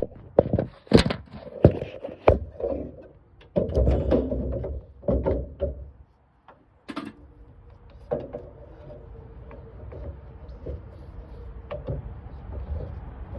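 Knocks and thuds of a car trunk lid and gear being handled: a run of sharp clunks over the first six seconds, then a faint steady hum with a light tone.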